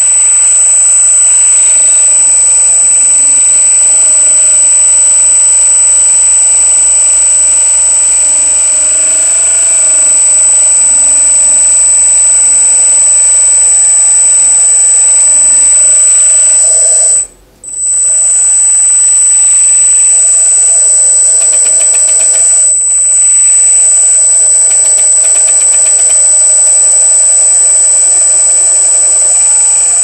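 Hydraulic pump of an RC skid steer loader running with a steady high whine while the loader arms and bucket are raised and lowered. It stops for a moment about two-thirds of the way through, then starts again.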